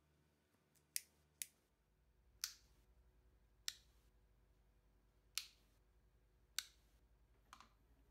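Inline cord switch of a bottle lamp being clicked on and off: seven sharp clicks at uneven intervals, the first two close together.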